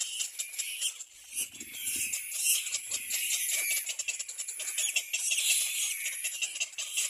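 Little black cormorant chicks giving continuous high-pitched squeaky, chattering begging calls made of rapid clicks. Brief faint low thumps come about a second and a half in and again near three seconds.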